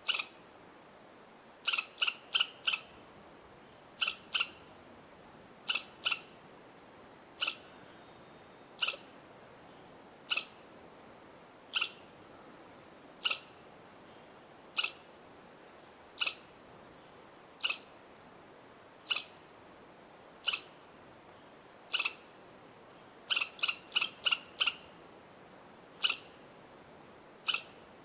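A rodent giving sharp, high-pitched chirping calls, one about every second and a half, with quick runs of four or five chirps shortly after the start and again near the end.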